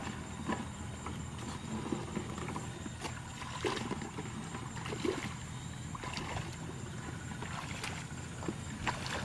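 Shallow stream water sloshing and splashing around a person's legs as she wades, with scattered small splashes, over a steady low hum.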